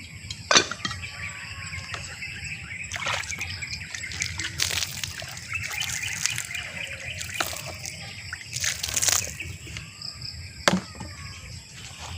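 Water sloshing and trickling, with a few sharp knocks about half a second in and again near the end, over a steady chorus of insects and occasional bird calls.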